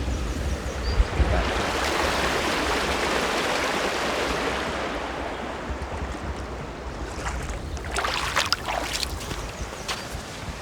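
Stream water rushing steadily, a broad hiss that eases off after the middle, over a low wind rumble on the microphone. A few sharp knocks come near the end.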